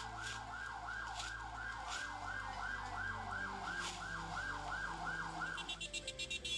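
Emergency vehicle siren in a fast yelp, its pitch sweeping up and down about three times a second, then cutting off near the end.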